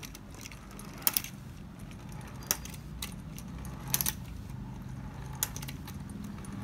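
Clockwork of a 1950s Japanese tin wind-up 'Fighting Chickens' toy running with a low steady whirr. About five sharp tinny clacks fall at irregular gaps as the two tin roosters peck at each other and the toy rolls along.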